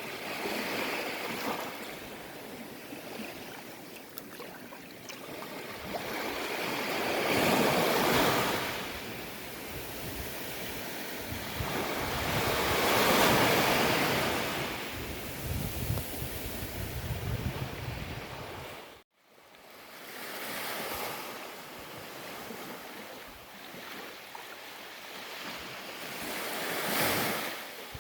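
Ocean waves breaking on a beach, the surf swelling and washing in, with three louder surges. About two-thirds of the way through, the sound drops out suddenly for a moment, then the surf resumes.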